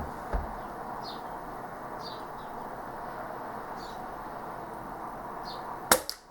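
Short, high bird chirps repeat over a steady background hiss. Near the end comes a single sharp crack: a BAM B4 .22 under-lever spring air rifle firing a pellet.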